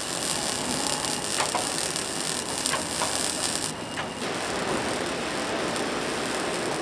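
Steady noise of metal-pressing factory machinery, with a few faint clicks and knocks in the first four seconds. The high hiss drops away about four seconds in.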